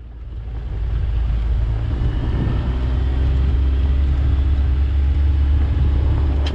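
Kawasaki Mule Pro FXR side-by-side with its three-cylinder engine running, driving on a dirt desert trail. The heavy low rumble of engine and tyres grows louder over the first couple of seconds, then holds steady.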